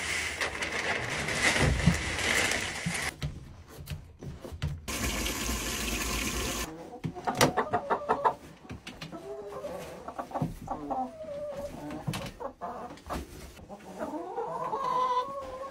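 Wood-shavings bedding hissing as it pours from a bag onto a floor, stopping about three seconds in. After some clattering, hens cluck and call.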